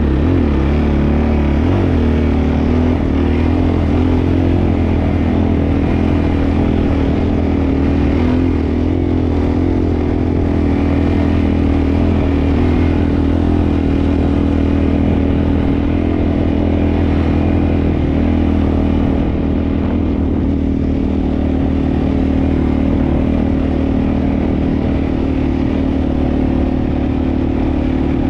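Sport ATV engine running under steady throttle while riding on sand, with a few quick rises and falls in revs near the start.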